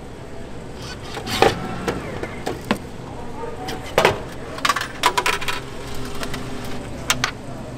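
Sharp clicks and knocks of a drinks vending machine being handled: its plastic delivery door and a plastic bottle taken out of the bin, with a quick run of small clicks about five seconds in. A steady low hum lies under it.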